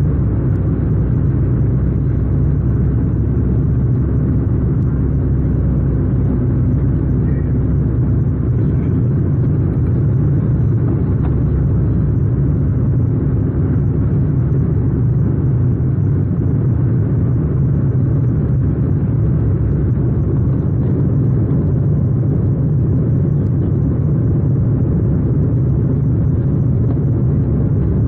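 Cabin noise inside a Sukhoi Superjet 100 on approach: a steady low rumble of its SaM146 turbofan engines and rushing air, with a faint steady hum.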